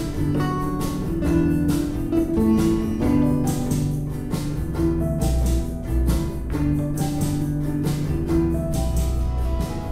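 Music led by guitar, with a steady beat about twice a second.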